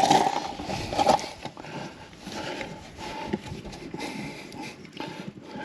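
Garden hose fitting being worked onto the truck camper's outside hot water connection by hand: rubbing and fumbling noises with a few sharp clicks of the fitting.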